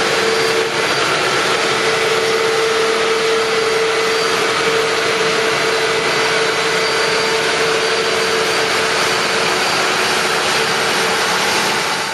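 Combine harvester running at work harvesting rice: a loud, steady machine noise with one held tone running through it.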